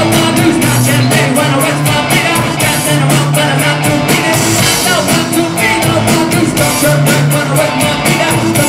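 A rock band playing live at full volume: a steady driving drum beat and a repeating bass line, with a singer's voice over the top.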